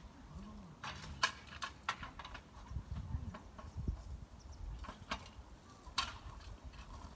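Metal tent-frame poles knocking and clanking as they are handled and fitted together, a few sharp clanks scattered through, the loudest about a second in and near the end.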